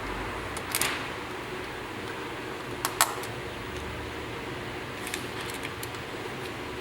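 Small plastic clicks and handling noises as a digital tire inflator gauge's battery compartment is opened and the battery swapped: a scraping click just under a second in, two sharp snaps about three seconds in, and a few light ticks later. A steady fan-like hum runs underneath.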